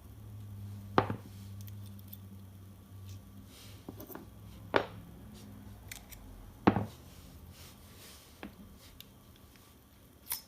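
Sharp clicks of steel revolver parts being handled as a Ruger GP100's cylinder is separated from its crane: three loud clicks spread through, a few fainter ones between, and one more near the end.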